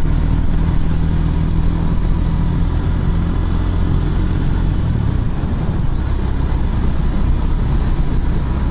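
Motorcycle engine running steadily under way, its note changing about five seconds in.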